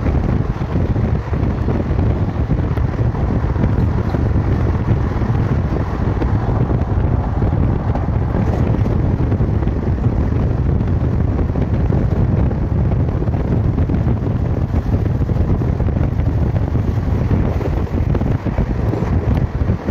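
Wind buffeting the microphone at the open door of a moving Indian Railways express train, over the steady low rumble of the coaches running along the track.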